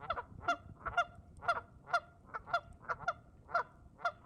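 Geese honking: a steady run of short honks, about three a second.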